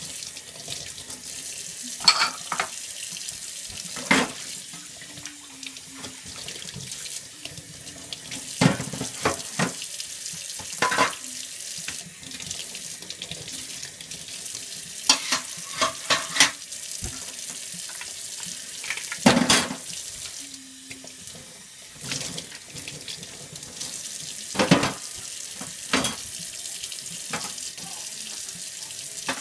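Kitchen tap running steadily into a stainless steel sink during hand dish-washing, with scattered clinks and knocks of dishes and utensils against each other and the sink, the loudest about two-thirds of the way through.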